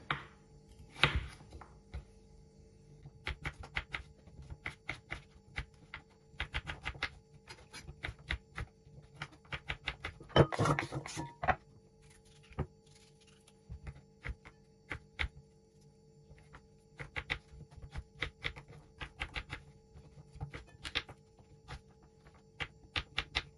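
Kitchen knife chopping raw potato into cubes on a wooden cutting board: irregular runs of quick, sharp taps. About ten seconds in there is a louder clatter as the cut cubes go into a stainless steel bowl.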